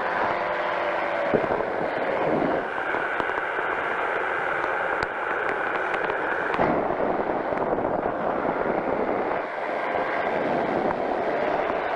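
Powered parachute's engine and propeller running steadily in flight, buried in loud, rough wind rush on the microphone.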